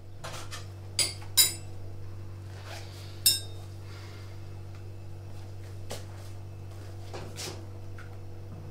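Tableware clinking: three sharp, ringing clinks about a second in and again after three seconds, with a few fainter knocks, over a steady low hum.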